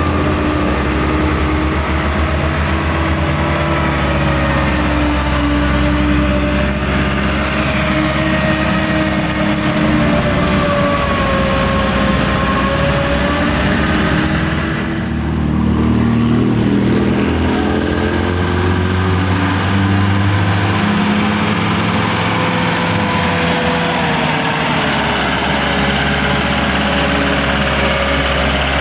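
Diesel engines of loaded light trucks running steadily as they pull up a steep climb, their pitch drifting slowly up and down. The sound changes abruptly about halfway through as a second truck takes over.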